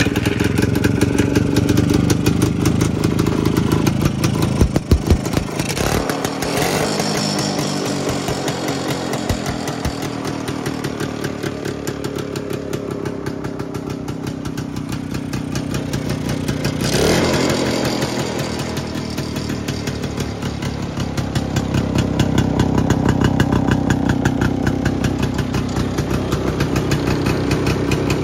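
Old Yezdi motorcycle's two-stroke engine running at idle after a kick start, a fast even firing beat, revving up briefly twice, about six and seventeen seconds in.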